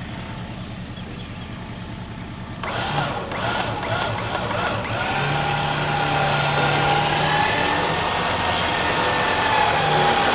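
A vehicle engine running, getting louder after a few clicks about two and a half seconds in, then running steadily with a wavering whine over it.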